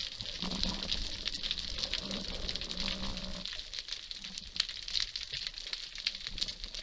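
Underwater reef crackle: a dense, steady patter of tiny clicks from snapping shrimp on the seabed. A low steady hum runs under it for the first three seconds or so, then stops.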